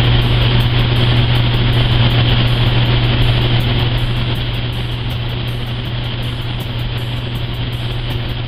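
Steady loud mechanical hum and rushing air of commercial kitchen ventilation, with a strong constant low drone, easing slightly about four seconds in.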